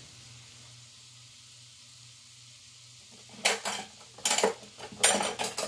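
Onions frying in bacon fat in a cast iron skillet, a faint steady sizzle. From about three and a half seconds in, a run of short, loud clatters of kitchen utensils being handled.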